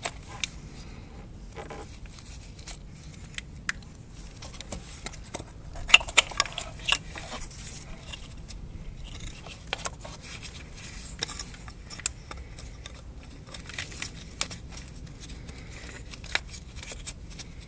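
Small clicks and scrapes of a screwdriver prising the locking tab of the camshaft position sensor's plastic three-pin plug, and of gloved hands working the plug free. A quicker run of sharper clicks comes about six seconds in.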